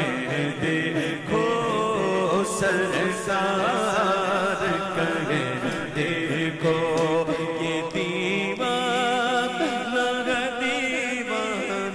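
Male naat reciter singing an Urdu devotional naat into a microphone, in long ornamented phrases with wavering pitch and a steady low hum beneath.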